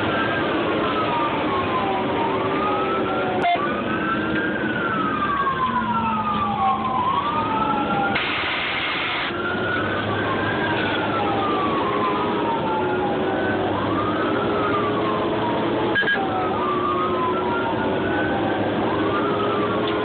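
Fire engine siren wailing, heard from inside the cab, its pitch rising and falling every few seconds. A short hiss comes about eight seconds in.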